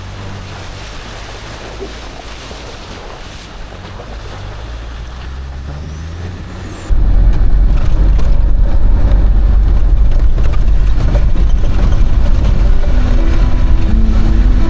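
Land Rover Defender driving along a wet, waterlogged track: steady engine rumble with tyre and water hiss. About halfway through, loud background music cuts in suddenly with a heavy deep bass, and melody notes come in near the end.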